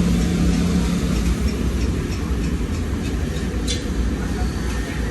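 Motorcycle engine running, a steady low rumble with a faint hum that fades about a second in.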